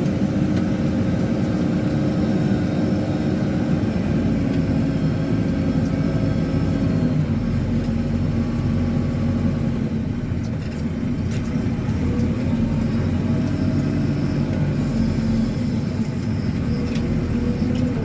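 Diesel engine of a JCB 4CX backhoe loader running steadily, its engine speed shifting up and down a few times.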